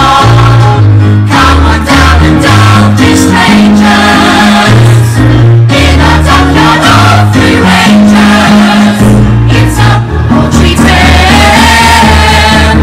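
A musical-theatre ensemble singing in chorus over a loud instrumental backing with a bass line that steps from note to note.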